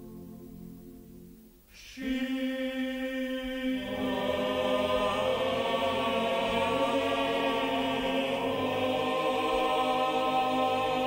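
Film score music: a choir singing slow, sustained chords. A quiet held chord fades away, a new chord enters about two seconds in, and the choir swells fuller and louder from about four seconds.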